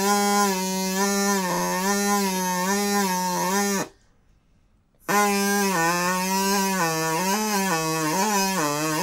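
Drinking-straw reed whistle with a sliding outer straw, blown in two long buzzy notes with a short break about four seconds in. The pitch holds fairly steady in the first note and slides down and up several times in the second as the straws are slid back and forth, lengthening and shortening the air column.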